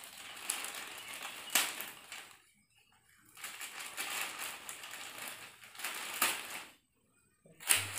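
Thin plastic courier mailer bag being pulled and torn open by hand, crinkling and crackling irregularly, with two short pauses, about two and a half seconds in and again near the end.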